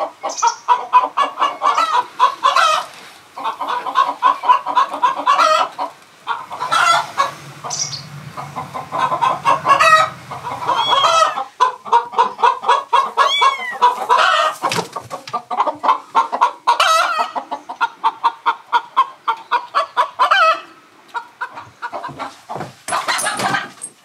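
Domestic chickens clucking in a rapid, steady chatter, with a few higher calls mixed in.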